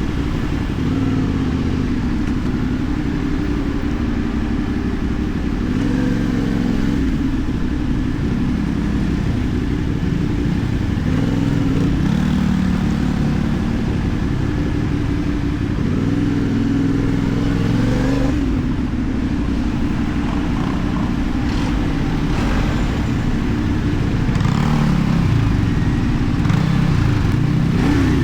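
CFMoto 450NK's parallel-twin engine running through a LeoVince aftermarket exhaust while being ridden, its note rising and falling several times as the throttle is opened and closed.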